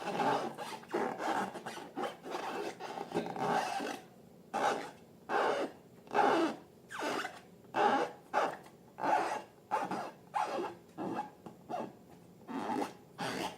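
Slime being squished and worked by hand, with about four seconds of continuous rubbing followed by a run of separate squelching strokes, roughly one and a half a second.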